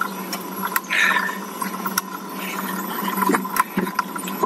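Bicycle riding noise on a hill climb: a steady hiss with scattered sharp clicks and rattles.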